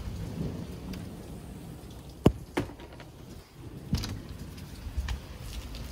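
Steady rain, with a few sharp knocks from a glass storm door and its latch being handled; the loudest knock comes about two seconds in, with smaller ones shortly after and about four seconds in.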